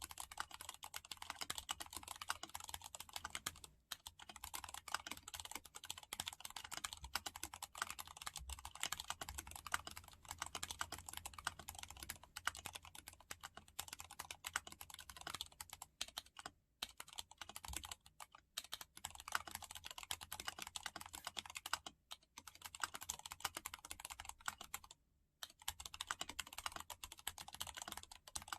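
Typing on a mechanical keyboard fitted with Gateron Ink Yellow linear switches lubed with Krytox 105: a fast, continuous clatter of keystrokes with a few brief pauses.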